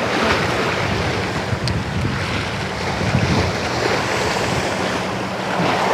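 Sea waves washing against the shore, with wind blowing on the microphone.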